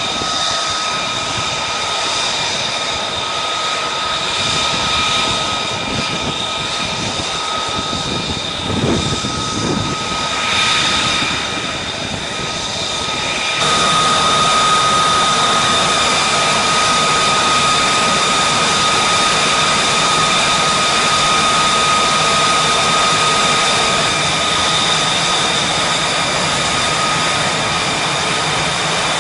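Jet aircraft engine running with a steady high whine over a loud rush of exhaust noise. A little under halfway through, the sound steps up abruptly and grows louder and denser.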